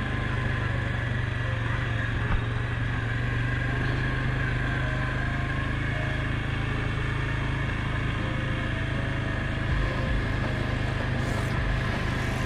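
Suzuki KingQuad 750AXi ATV's single-cylinder engine running steadily at an even, low pace while riding a dirt track, with a steady whine on top.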